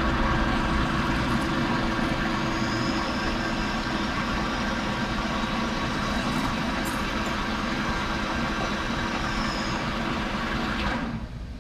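Metal lathe running steadily with a hum of many steady tones, its chuck spinning an aluminum mount while the turning tool takes a light cut off the front face and throws curled chips. The lathe stops about eleven seconds in.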